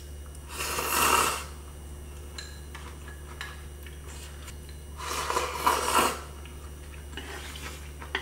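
Slurping of jjamppong ramyun noodles, two loud slurps about a second in and again about five seconds in, with a few light clicks between them.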